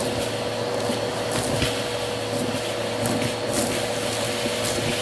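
Bissell CleanView vacuum running with a steady whine while its hose wand sucks up pistachio shells, beads and confetti from carpet. Scattered light crunches and clicks come as debris rattles up the tube.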